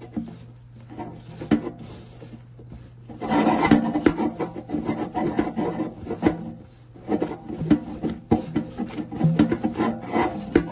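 A plastic-gloved hand mixing flour into dough in a stainless steel bowl: irregular rubbing, scraping and rustling. It gets louder about three seconds in and again in the last few seconds.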